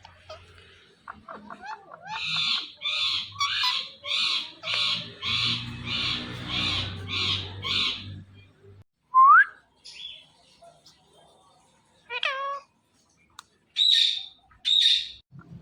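Indian ringneck parrot calling: a run of about a dozen harsh, evenly spaced squawks at roughly two a second, then a short, loud rising whistle, followed by a few scattered shrill calls near the end. A low hum sits underneath the run of squawks.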